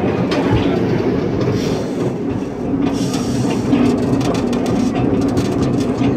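Miniature ride-on railroad train running, heard from aboard: a steady rumble of wheels on track with scattered clicks.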